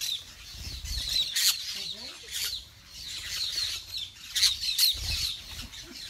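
A flock of green parakeets calling: many short, high chirps and screeches overlapping throughout, with a couple of low rumbles on the microphone.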